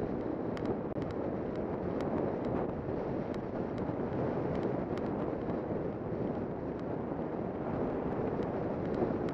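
Wind rushing over a helmet-camera microphone on a galloping horse: a steady, loud roar, with faint sharp clicks every half second or so.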